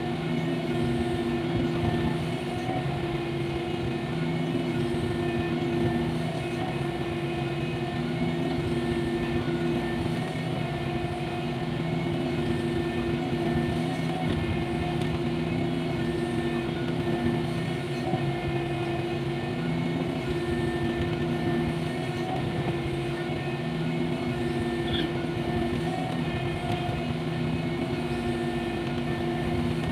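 Cat 305.5E mini excavator's diesel engine running steadily at working speed while it digs and loads soil, a constant drone with a steady tone over it.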